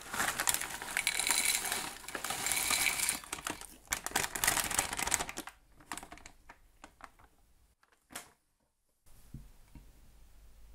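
Crinkle-cut sweet potato snack sticks poured from a crinkly plastic packet into a glass bowl, the dry pieces clattering and clicking against the glass over the rustle of the bag. The pouring stops about halfway through, leaving only a few faint clicks.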